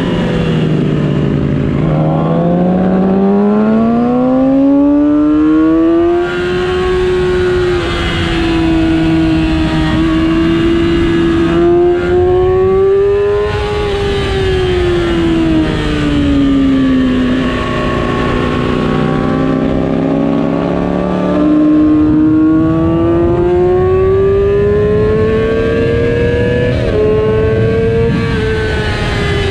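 2007 Yamaha R6's 600 cc inline-four engine running hard at track speed. Its pitch climbs and falls slowly several times as the throttle is worked through corners and straights, with a brief step down near the end.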